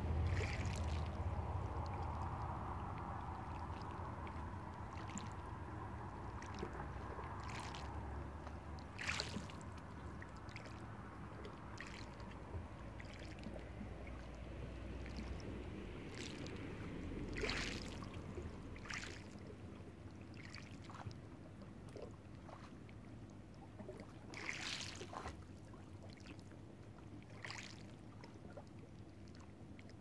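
Small waves lapping and washing over a pebble shore, with short splashes every few seconds. A passing car's low rumble fades away over the first few seconds.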